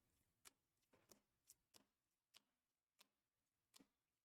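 Near silence with about seven faint, short clicks at uneven intervals, from trading cards being handled and shuffled.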